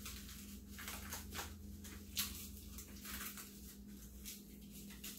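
Faint, irregular rustling and soft taps as gloved hands handle a small bowl and pour seasoning soy sauce over raw chicken drumsticks, over a steady low hum.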